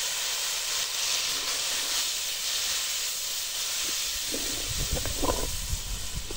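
Water hitting hot ghee in a metal kadhai of frying chicken, onions and spices: a loud steaming hiss that slowly eases. Near the end come a few knocks and scrapes of the ladle stirring in the pan.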